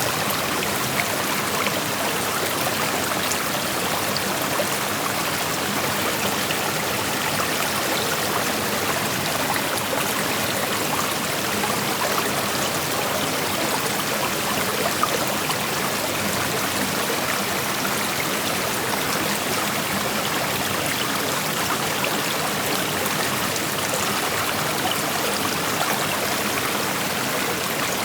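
Shallow creek flowing over rocks: a steady rush of water with small splashes and trickles scattered through it.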